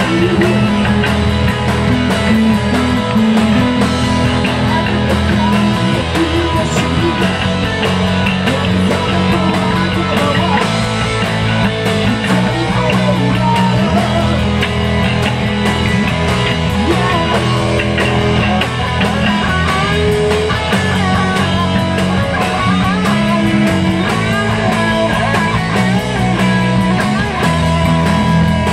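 Live rock band playing an instrumental passage: electric guitar over bass guitar and drums.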